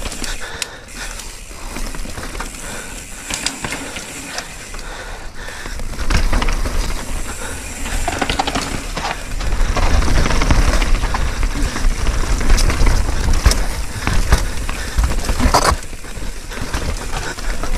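Mountain bike descending a rough technical trail: the rear hub's ratchet ticking as it coasts, mixed with clicks and knocks from the tyres and bike rattling over rocks and roots. The noise grows louder and rumbling about halfway through.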